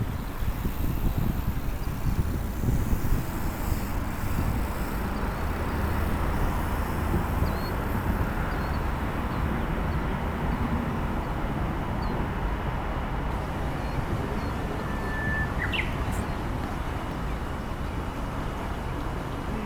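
Wind rumbling on the microphone, with faint bird chirps here and there through the middle. One short chirp rises sharply in pitch near the end.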